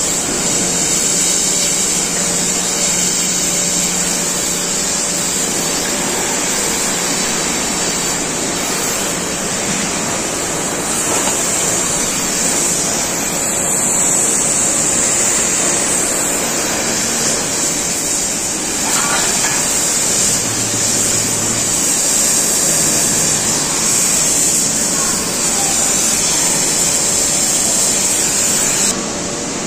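Gas cutting torch hissing steadily as it cuts through the steel of a shipping container, over the steady noise of the smelter yard. The sound drops abruptly just before the end.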